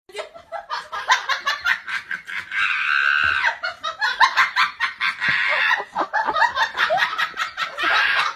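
Hard, high-pitched laughter in rapid, continuous peals, with a held squealing stretch about three seconds in.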